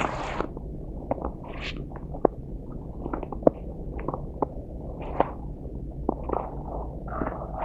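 Snow crunching underfoot in an irregular series of short crunches and clicks, over a low steady rumble. A louder crunch comes right at the start.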